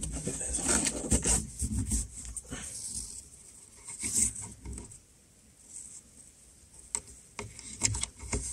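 Irregular rubbing, rustling and small clicks of hands working at a car's rear-view mirror, hanging an air freshener. The busiest handling is in the first two seconds, with a few sharp clicks near the end.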